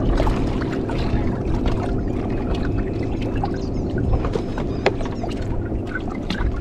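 Water slapping and splashing against the hull of a fiberglass bass boat, over a steady low hum, with scattered sharp splashes and clicks as a bass is fought to the side and scooped into a landing net.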